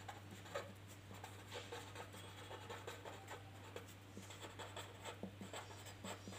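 Pen writing on paper: faint, irregular scratching strokes, over a steady low hum.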